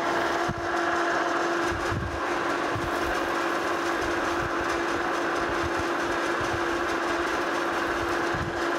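Metal lathe running steadily with a steel plate spinning in its chuck: an even machine hum holding one constant tone, with no cut being taken.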